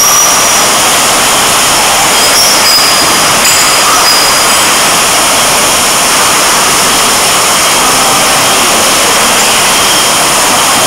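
Steady, loud machine din of a PALI PEPA 30/30/8 triblock bottle filler and its conveyor running, filling beer into brown glass bottles, with occasional high clinks of glass.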